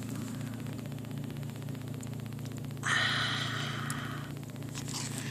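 Steady low hum of a car's cabin with faint, rapid even ticking, and a breathy hiss lasting about a second and a half near the middle.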